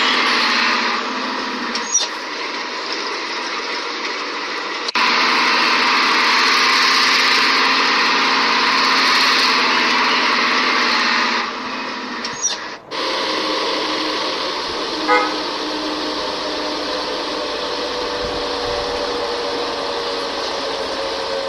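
Toy telolet bus sounding off: a loud, steady engine-like noise that drops, comes back and then stops. A few clicks follow, then steady held horn tones from its little speaker.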